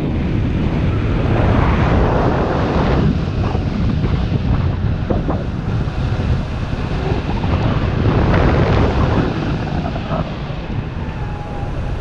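Airflow of paraglider flight buffeting a helmet-mounted camera's microphone: a loud, steady low rumble of wind noise that swells in gusts every few seconds.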